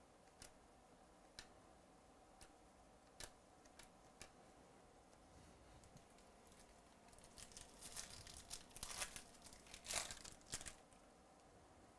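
A few light clicks of trading cards being handled, then from about seven seconds in the crinkling and tearing of a foil wrapper on a Topps Chrome baseball card pack being ripped open, loudest near the end.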